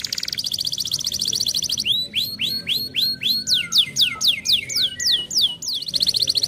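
Domestic canary singing: a very fast high trill, then a run of slurred notes at about four a second that sweep down and up, and another fast trill near the end.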